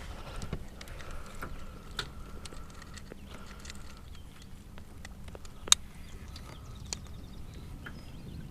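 Scattered small clicks and knocks of gear and a fish being handled in a fishing boat, with one sharp click about six seconds in, over a steady low rumble.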